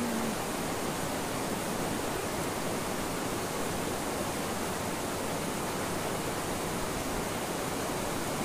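Steady rush of river water running over rocks, an even hiss-like noise that does not change.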